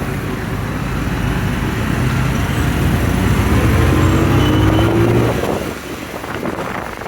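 Motorcycle engine running under a steady rush of wind and road noise, its pitch rising as it speeds up, then easing off near the end.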